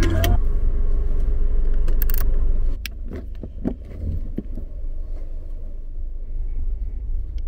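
Car engine running, heard from inside the cabin as a steady low rumble, with a few sharp clicks and knocks between about two and four and a half seconds in as the controls are worked.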